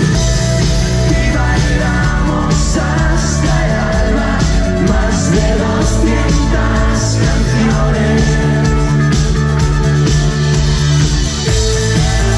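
Live band with drums, electric guitars, bass and keyboards playing loud through a club PA, with singing over the music, heard from within the audience.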